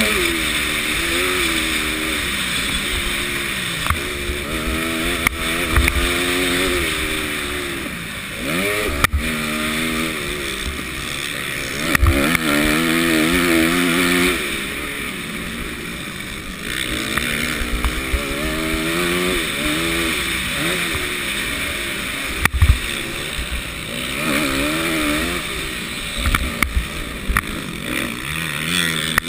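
Motocross bike engine revving up and down over and over as the rider accelerates, shifts and backs off, with wind rushing over a helmet-mounted microphone. Occasional short knocks cut through.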